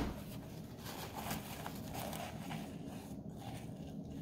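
Faint rustling and squishing of paper towel being pressed down into water in a glass measuring cup.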